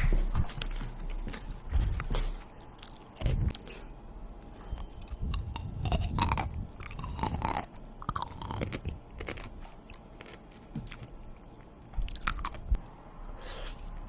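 A person biting and chewing crunchy food close to the microphone, with irregular crunches.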